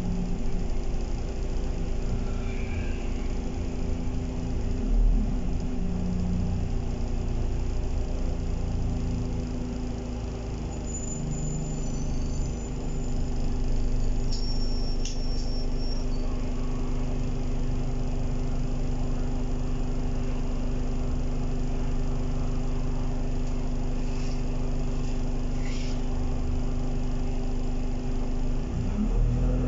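Inside an Alexander Dennis Enviro 200 single-deck bus on the move: a steady engine and drivetrain hum with low road rumble. It eases off briefly a little before halfway and then picks up again.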